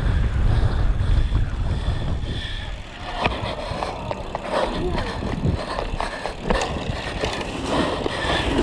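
Mountain bike ridden fast downhill, its frame and chain rattling and knocking over rough ground, with wind rushing over the microphone. The rush is heaviest in the first few seconds; after that, sharp clicks and knocks come thick and fast.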